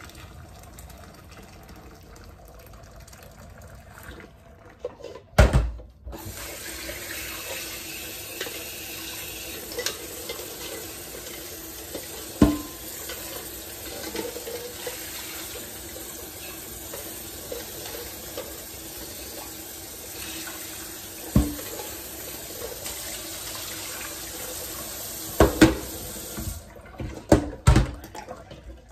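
Kitchen faucet running steadily into a stainless steel pot of hard-boiled eggs in a metal sink, cooling the eggs under cold water, with a few knocks of the pot against the sink. Near the end the tap stops and the pot clatters several times.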